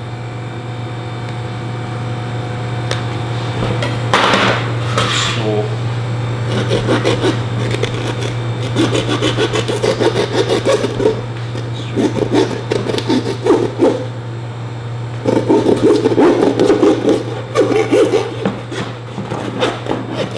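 Butcher's hand bone saw cutting through lamb rib bones in quick back-and-forth rasping strokes, in several runs with short pauses, after a couple of knocks about four seconds in. A steady low hum runs underneath.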